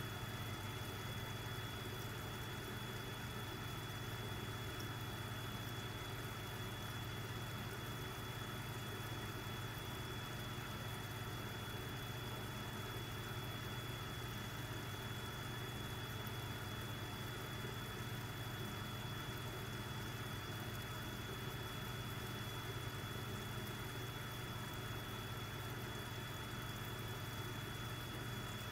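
Steady low hum of running aquarium equipment, with a thin high tone held constant above it.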